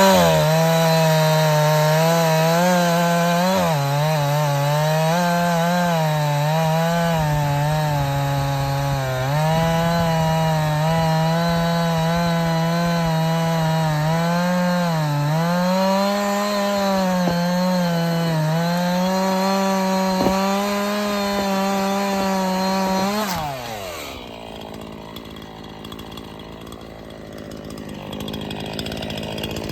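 Chainsaw running at high revs while cutting through downed pine logs, its engine note dipping and recovering as the chain bites into the wood. About 23 seconds in the throttle is released and the pitch falls away, leaving it much quieter.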